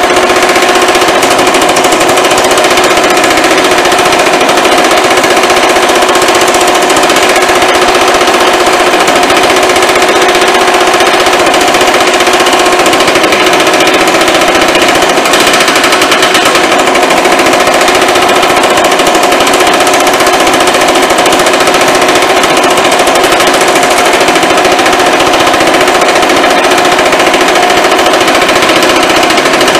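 Baileigh MH-19 power hammer hammering steadily in a fast, continuous rattle as a sheet-metal panel is worked between its linear stretch dies, stretching the panel toward a reverse curve. A steady tone runs under the hammer strokes.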